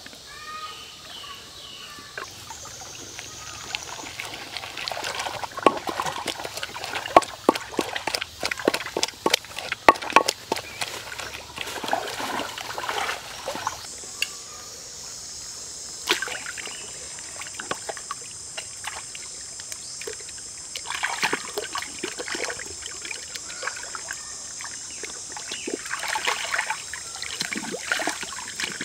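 Wooden pestle pounding chili-herb sauce in a wooden mortar: a fast run of sharp knocks through the first half. A steady high hiss then comes in, with scattered knocks from a cleaver cutting a raw chicken on a wooden board, and water splashing near the end.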